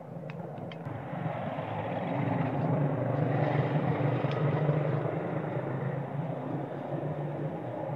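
A motorbike engine passes by on the road, growing louder to a peak about halfway through and then fading away. A few faint clicks come in the first second.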